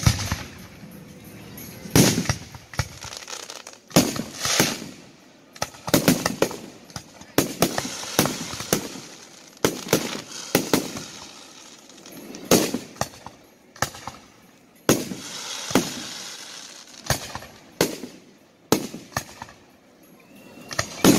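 Aerial fireworks shells launching and bursting in steady succession: sharp bangs about once a second, some echoing, with stretches of crackling between them.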